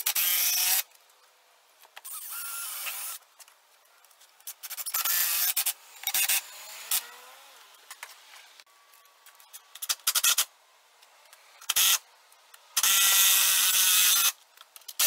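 Cordless impact driver driving lag screws into a wooden brace. It runs in a string of short bursts that start and stop abruptly, and the longest run, about a second and a half, comes near the end.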